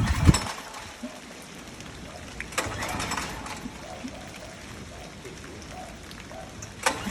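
Champion portable generator being cranked to start and not catching. There are short bursts of cranking at the start, about three seconds in and near the end, with no steady running between them. It is hard to start after sitting unused all summer.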